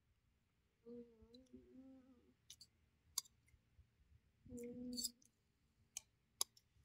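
Quiet eating at the table: a few light clicks of a fork against a plastic plate and mouth sounds, with two short hummed "mm" sounds, one about a second in and one near five seconds in.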